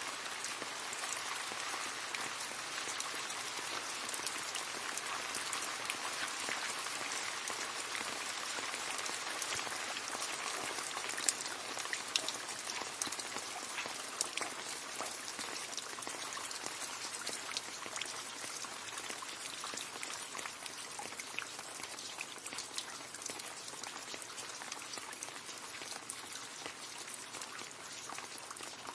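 Steady rain splashing into a puddle, a continuous patter with many separate drop splashes and a few louder plops about halfway through, easing a little towards the end.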